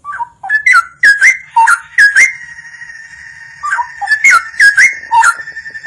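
Straw-headed bulbul (cucak rowo) singing: loud, clear whistled phrases of gliding notes, one at the start and another about four seconds in, with a softer held note between them.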